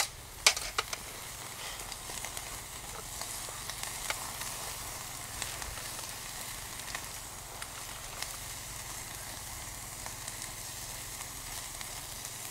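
Wood campfire burning with a steady hiss and a few faint scattered pops, after a sharp click or two at the very start.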